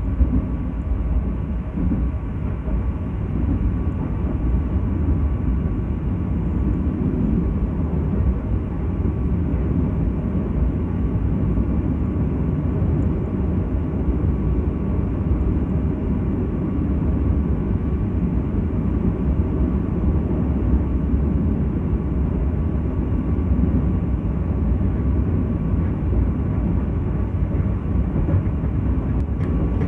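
Steady low rumble of a moving passenger train heard from inside a carriage, the wheels running on the rails at speed, with a faint steady hum above it.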